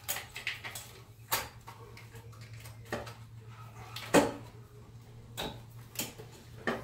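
Irregular clunks and knocks as a D16Y8 intake manifold is worked by hand into place on a D17 engine and bumps against the AC line, the loudest about four seconds in. A steady low hum runs underneath.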